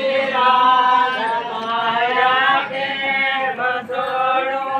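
Male voice chanting a song in long, drawn-out held notes that glide from one pitch to the next, with no drumbeat.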